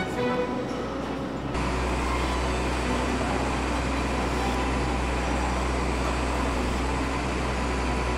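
Steady background noise of an aircraft assembly hall, a low hum under an even rushing of air and machinery, starting abruptly about one and a half seconds in.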